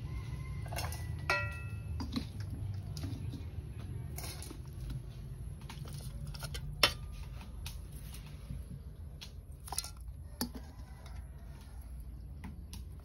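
A spoon clinking against a bowl as a seasoned minced-beef mixture is stirred and scooped into a meat grinder's bowl. There are a handful of sharp, separate clinks, one ringing briefly about a second in, over a steady low hum.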